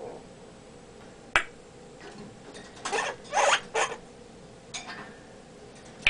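African grey parrot making a single sharp click about a second in, then three short raspy noises in quick succession and a fainter one a second later.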